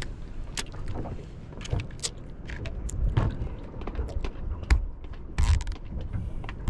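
Ice cubes and cups clinking and knocking as iced coffee is put together, a string of short scattered clicks with a busier rattle about five and a half seconds in, over a low steady rumble.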